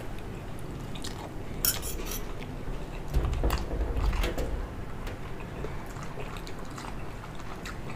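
Metal spoon clinking and scraping against a ceramic dish while scooping rib soup, a run of sharp clinks near two seconds in and more a couple of seconds later, with light liquid sounds. A dull low bump about three seconds in.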